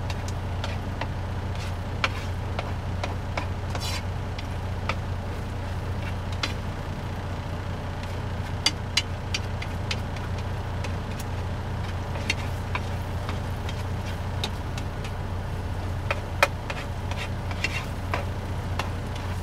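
Eggs and chorizo sizzling in a skillet while a utensil scrapes and taps against the pan in scattered clicks, over the steady low hum of the semi truck's engine.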